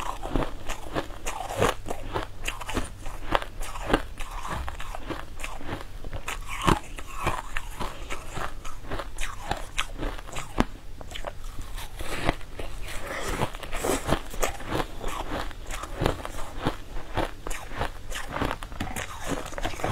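Close-miked biting and chewing of hard, crunchy purple crystal-textured cubes, with a dense run of crisp, irregular crunches several times a second.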